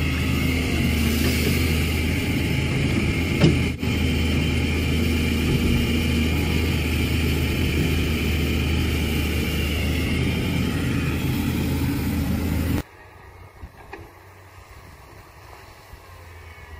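Excavator engine running steadily, with one sharp click about three and a half seconds in. The sound drops abruptly about 13 seconds in to a much quieter engine hum.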